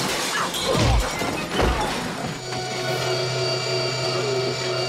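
Film fight sound effects: several heavy hits and crashes in the first half, the biggest two under a second apart. From about halfway they give way to a steady low hum with a high thin whine over it.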